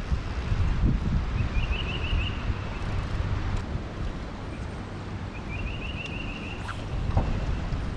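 Wind buffeting the microphone with a steady low rumble. A short, high, rapid trill of chirps sounds twice over it, about 1.5 s in and again near 5.5 s.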